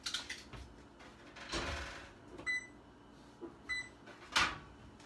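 Metal kitchen tongs and cookware clicking and knocking, with a short rush of noise about a second and a half in and the loudest knock near the end. Two short high electronic beeps sound around the middle, a little over a second apart.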